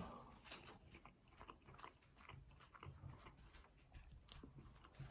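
Faint chewing of a mouthful of battered, fried fish bite in buffalo sauce, with soft irregular mouth clicks.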